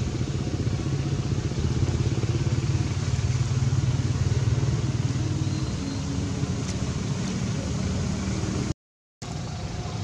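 A steady low engine rumble, like a motor vehicle running nearby, with faint rustling over it; it breaks off for a moment near the end.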